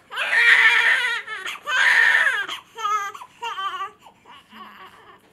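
Newborn baby crying: two long, loud wails, then shorter wavering cries that trail off into quieter fussing near the end.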